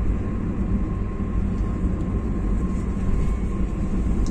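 Steady low rumble of a vehicle driving along a concrete highway: tyre and engine noise at an even speed, with a faint steady high hum running through it.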